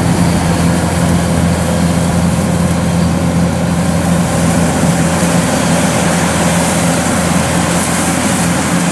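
Kubota DC105X combine harvester running steadily while cutting and threshing rice: an even, loud engine hum with a constant low drone and a machinery rush above it.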